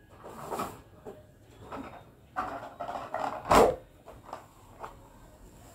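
Rustling and handling noises of objects being moved on a bed, in several short bursts, with one sharp, louder knock about three and a half seconds in.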